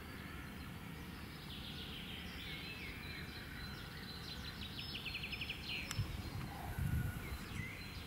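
Small songbirds singing faintly over a steady outdoor background, one giving a quick trill of rapid notes a few seconds in. A few low muffled bumps come near the end.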